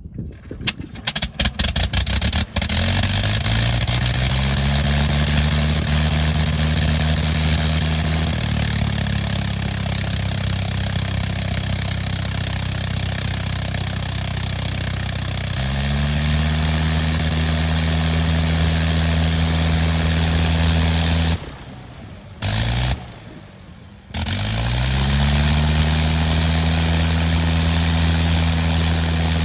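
Nine-cylinder Gnome Monosoupape rotary engine of a Fokker E.III reproduction being hand-propped into life: a few uneven firings, then it catches about two seconds in and settles into a steady run with the propeller turning. About three-quarters of the way through, it drops away twice for a second or so, then picks up again.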